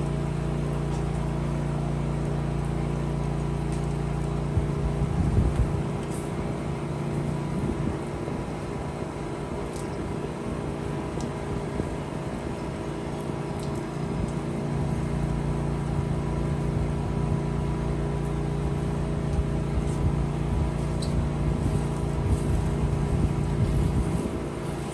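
Pressure washer's engine running steadily with a constant drone. Its sound shifts about five seconds in and settles back to the earlier steady note around fifteen seconds in.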